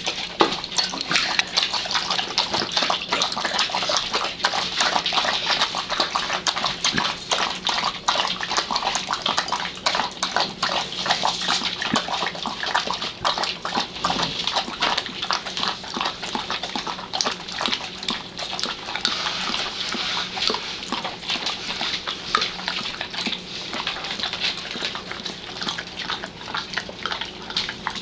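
Two huskies lapping a milky drink from one small bowl, a fast, continuous run of wet lapping strokes.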